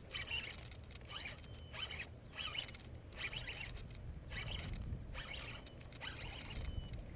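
Baitcasting reel being cranked to reel in a hooked largemouth bass, giving a dry whirring in short bursts, about one and a half a second, turn by turn.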